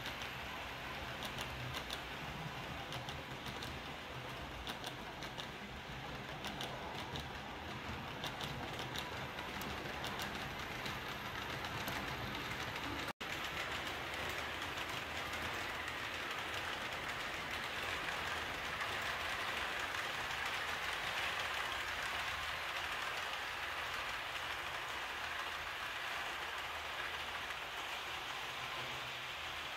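Model train of Roco SBB EW IV coaches running along the layout track: a steady rolling hiss of small wheels on metal rails with the locomotive motor's hum, and rapid clicks over rail joints and points in the first half.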